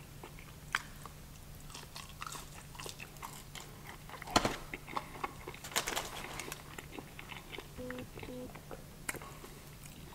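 A person chewing and biting fried fast food close to the microphone, with scattered short, sharp bites, the loudest about four and a half seconds in.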